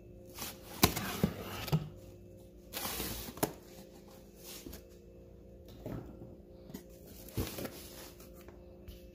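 Utility knife slicing through corrugated cardboard and the box flaps being pulled and folded open: scraping, rustling stretches broken by a few sharp clicks, over a steady low hum.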